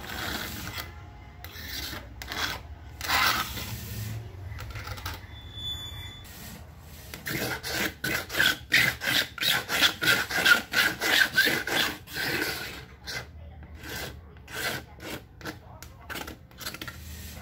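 Cloth pad scrubbing the bare glass of an LCD TV panel in quick back-and-forth strokes, clearing the leftover adhesive of the old polarizer film. The strokes come in short spells at first, run fast and loudest from about seven to thirteen seconds in, then slow down.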